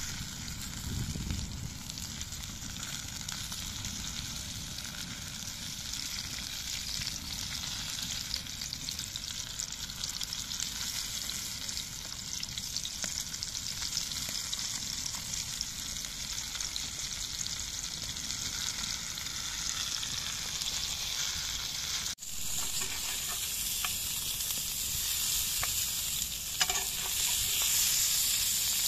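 Zucchini strips and yellow bell pepper slices sizzling in a cast-iron grill pan over a wood fire: a steady crackling frying hiss. It breaks off for a moment about two-thirds of the way through and comes back louder.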